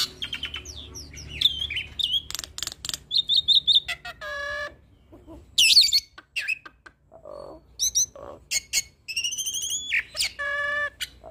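Hybrid starling (Asian pied starling × Nias hill myna cross) singing a varied, fast-changing song of sharp clicks, whistled glides, rattling trills and buzzy notes in short phrases with brief pauses, the song full of fill-in phrases copied from other birds.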